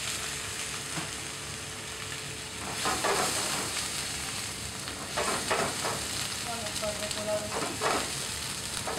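Sea bream, onion and cherry tomatoes sizzling in a hot non-stick wok just deglazed with white wine, as the liquid cooks off. Metal tongs stir and scrape in the pan in short bursts about three, five and eight seconds in.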